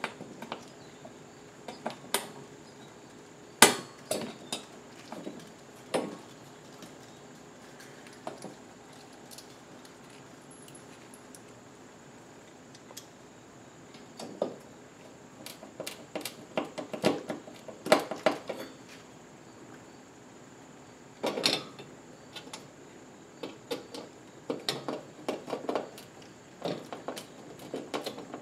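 Metal clicks and clinks of a Phillips screwdriver and screws working against a steel tool-rack bracket, screws being turned by hand into drywall anchors. Irregular scattered taps, the sharpest about three and a half seconds in, with denser runs of clicking past the middle and again near the end.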